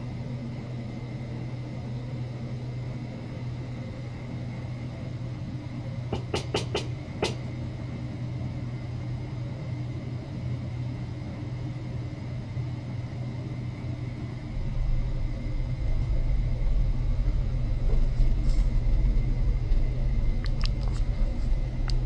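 Steady low hum with a faint, thin high whine over it. A few sharp clicks come about six to seven seconds in, and a deeper rumble sets in about two-thirds of the way through and grows louder.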